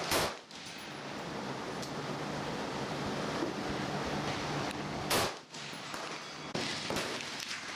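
Two AR-15 rifle shots about five seconds apart, one at the very start and one a little past the middle, each with a short echo, and fainter sharp cracks near the end, over a steady background hiss.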